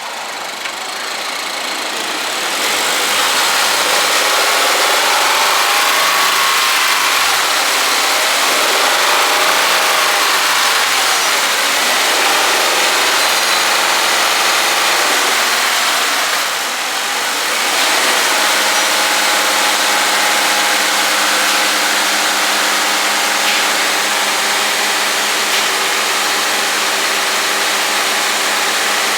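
Toyota GR86's FA24 flat-four engine running on a chassis dyno under a steady loud rush of air, its pitch rising and falling a couple of times, then holding steady after a brief lull.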